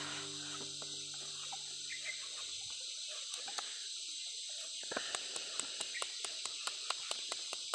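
Knife shaving slices off a raw bamboo shoot: a run of sharp little clicks, sparse at first and then about four a second in the second half, over a steady high hiss. Soft background music with held tones fades out in the first couple of seconds.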